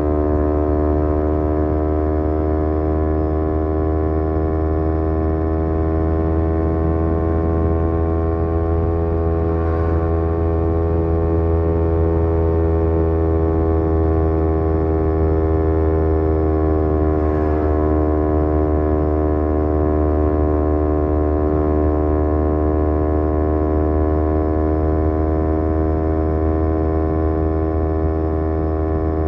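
Kawasaki Z250 parallel-twin engine through a SeaPro aftermarket muffler, running steadily at cruising speed, its note dipping slightly a little past halfway as the throttle eases.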